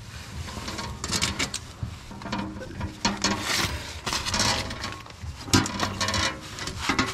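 Hand rivet gun being squeezed stroke after stroke to pull a pop rivet into an aluminium shield: its jaws and levers click and rattle about once a second, with a sharper click about five and a half seconds in.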